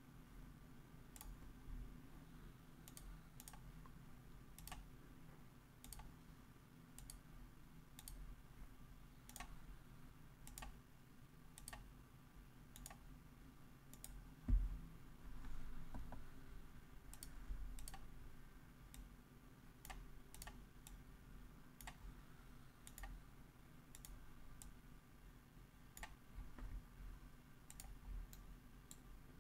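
Faint computer mouse clicks, one or two a second, over a steady low hum, with a single low thump about halfway through.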